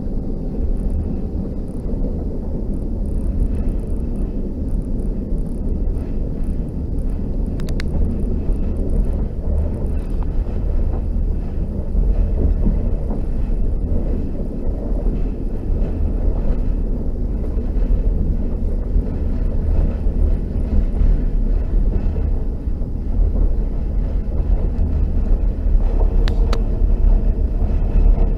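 Passenger train carriage running along the track, a steady low rumble of the wheels and running gear heard from inside a compartment, with a couple of faint clicks.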